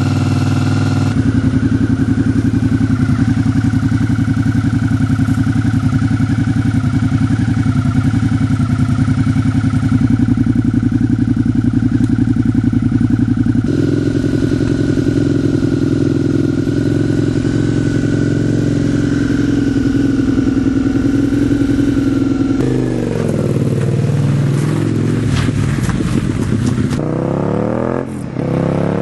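Suzuki Gladius 645 cc V-twin through a Zorsts tunable silencer, running at a steady speed with a deep exhaust note for about twenty seconds. Then it is revved up and down several times, with quick rising revs near the end.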